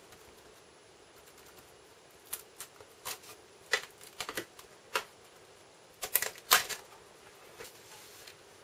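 Sharp, irregular taps and clicks of a sponge ink applicator dabbing archival ink through a plastic stencil onto a journal page, starting about two seconds in. There are about a dozen, the loudest near the end.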